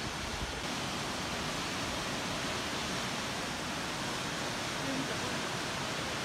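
Waterfall rushing steadily as one even hiss.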